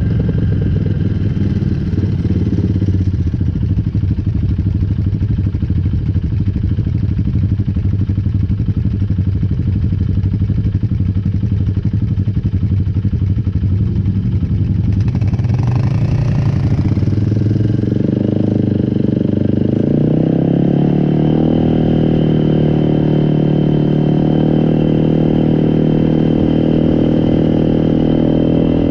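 ATV engine running under way; about two-thirds of the way through its pitch climbs as it speeds up, then it holds steady at the higher speed.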